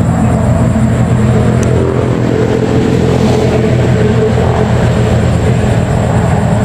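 A steady, low engine drone running throughout.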